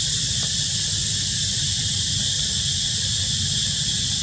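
Steady, high-pitched insect chorus, with a low continuous rumble underneath.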